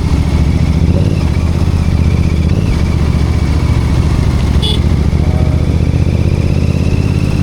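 Royal Enfield Continental GT 650's parallel-twin engine running steadily, with a short high chirp about two-thirds of the way through.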